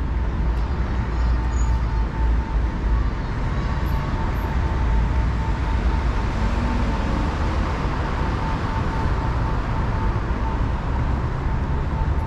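Steady road traffic on a busy multi-lane city street, with a strong low rumble. A faint, rapidly repeating beep runs through it.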